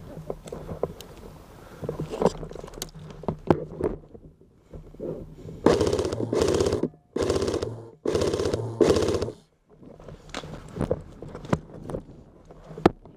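Airsoft rifle firing on full auto in about five short, rapid bursts back to back, a few seconds in, with scattered clicks and knocks of gear around them.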